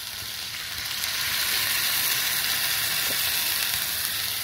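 Bite-sized chicken pieces sizzling in a hot pan with a little water just added, a steady hiss that swells about a second in and then holds.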